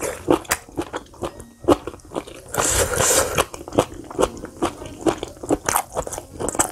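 Close-up chewing of boiled pork trotter meat and skin: quick wet mouth clicks and smacks, with a louder stretch of chewing about two and a half seconds in.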